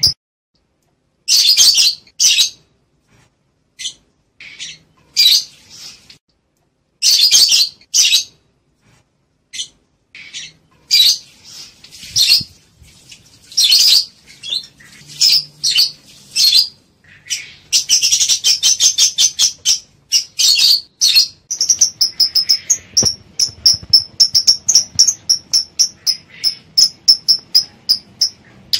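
Lovebirds calling with shrill, high chirps. They come in short bursts with pauses at first, then turn into fast, unbroken chattering about two-thirds of the way in. These are the calls of lovebirds in breeding condition, ready to mate.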